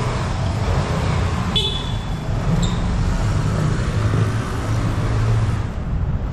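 Vespa scooter underway, a steady low rumble of engine and wind. A short high horn toot sounds about one and a half seconds in, and a second, briefer toot about a second later.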